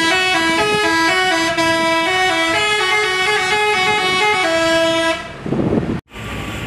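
A multi-note bus horn ("telolet" horn) playing a melody of stepped notes, which stops about five seconds in. A short noisy patch and then outdoor background noise follow near the end.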